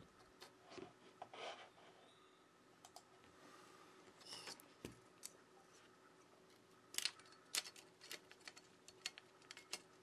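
Faint clicks and taps of a smartphone motherboard being handled and fitted back into the phone's frame, with a run of sharper clicks from about seven seconds in.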